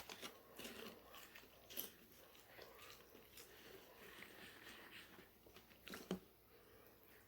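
A man chewing food, faint, with a few sharp mouth clicks: one at the start, one nearly two seconds in, and the loudest about six seconds in.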